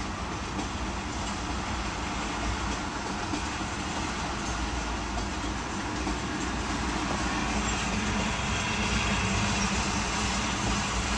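Loaded tank cars of a freight train rolling past: a steady rumble and rush of steel wheels on rail, growing a little louder near the end.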